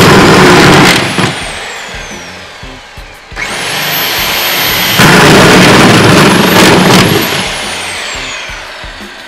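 Milwaukee right-angle drill boring 4-inch holes through the OSB web of a TJI joist. The motor whines up, runs loaded as the bit cuts, then winds down with a falling whine. This happens twice: a short burst at the start and a longer one beginning about three seconds in.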